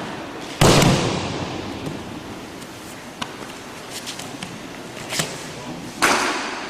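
Aikido throw: the thrown partner hits the mat in a breakfall about half a second in, a loud slap with a long echo in the hall. A second sharp thud comes near the end, with a few faint taps between.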